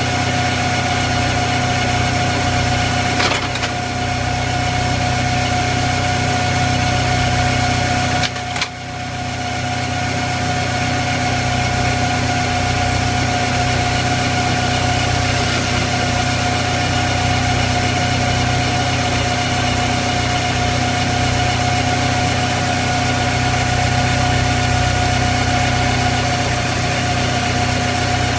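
Automatic screw machine (auto lathe) running steadily while turning a pin from steel bar under flowing cutting oil: a constant machine hum with a steady whine. There is a faint click about three seconds in and a short dip in the sound around eight seconds in.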